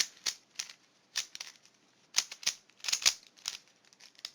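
Plastic 3x3 speed cube being turned by hand, its layers clicking and clacking in quick irregular runs with a short pause in the middle.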